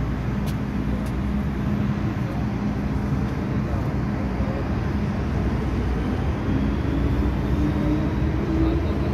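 Interior running noise of an MTR M-Train electric multiple unit: a steady rumble and hum of the train moving, with a faint motor whine rising in pitch over the last few seconds.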